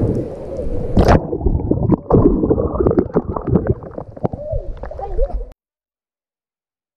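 Sea water sloshing and washing over a GoPro at the waterline. About a second in, a splash breaks over the camera, and the sound turns muffled, with gurgling. It cuts off suddenly about five and a half seconds in.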